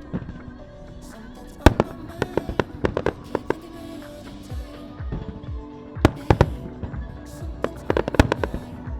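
Fireworks shells bursting in the sky with sharp bangs, in clusters of rapid reports about 2, 6 and 8 seconds in, over music playing throughout.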